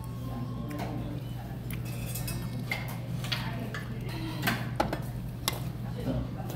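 A metal spoon clinking and tapping lightly against a pot of soup several times, scattered sharp clicks over a steady low hum.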